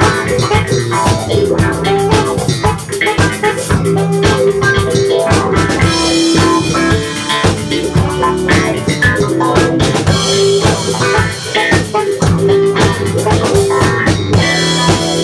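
Live band playing: a drum kit keeps a beat under saxophone and guitar.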